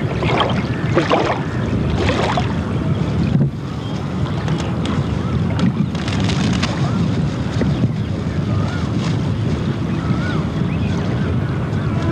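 Wind buffeting the camcorder's microphone over open river water: a steady low rumble, gusting hardest in the first couple of seconds and easing briefly a little past three seconds in.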